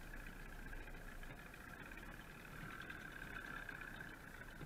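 Johnson outboard motor running steadily, an even mid-pitched hum.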